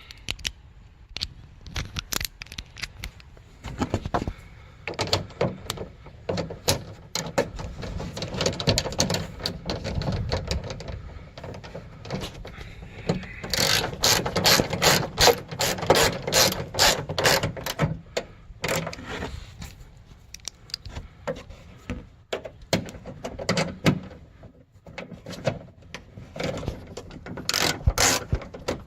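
Hand socket ratchet clicking in quick runs as 10 mm bolts on a car's trunk latch are tightened, the pawl ratcheting on each back-stroke. The runs are densest about halfway through and again near the end.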